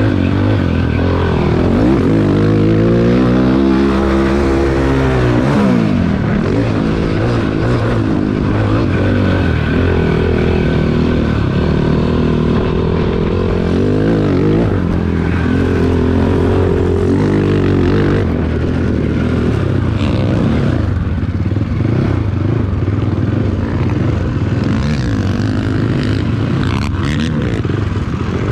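Cannondale 440 quad's single-cylinder four-stroke engine being ridden hard, its revs climbing and falling with the throttle and gear changes.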